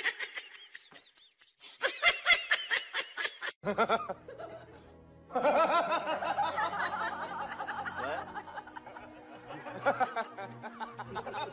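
People laughing and snickering, with music underneath.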